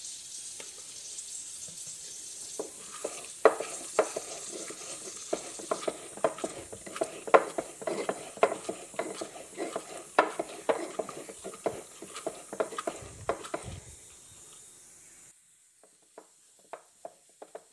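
Wooden pestle pounding red chillies and salt into a paste in a wooden mortar: a run of dull knocks, about two or three a second, fainter near the end.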